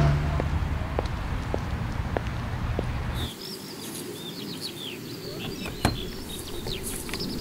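Low rumble of street traffic as a car drives past, with a few faint ticks. It cuts off abruptly about three seconds in, giving way to many birds chirping among trees, with a single sharp click about six seconds in.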